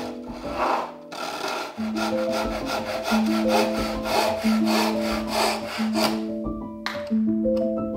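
Hand saw cutting through a piece of wood in quick back-and-forth strokes, about three a second, followed near the end by a couple of sharp knocks.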